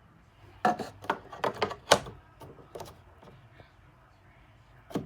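A quick, irregular run of clicks and knocks, loudest about two seconds in, then a single knock near the end.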